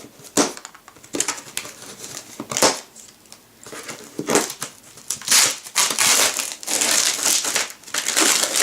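A large cardboard box being opened by hand: flaps and packing material scraping, rustling and crinkling in irregular snatches, becoming denser and louder over the last three seconds.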